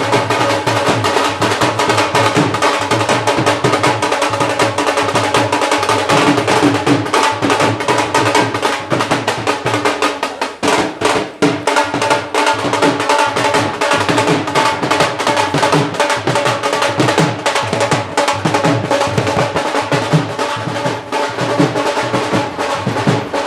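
Dhol drums played in a fast, continuous beat, with a brief lull about ten seconds in.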